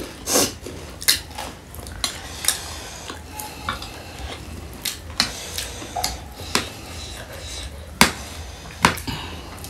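Steel spoon and fork clinking and scraping against plates as food is scooped and eaten, in irregular clicks, the loudest about 8 seconds in.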